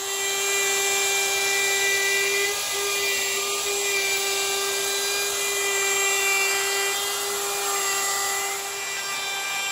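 DeWalt 2¼ HP router running at a steady high whine while its bit cuts a bowtie-shaped inlay recess into a pine board, guided by a plywood template jig.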